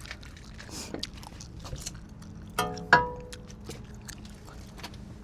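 Light clicks of metal hand tools being handled, with a sharper metallic clink about three seconds in that rings briefly, over a low steady hum.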